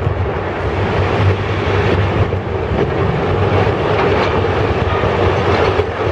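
Multi-storey concrete building collapsing in an explosive demolition: a loud, steady rumble of falling concrete and debris.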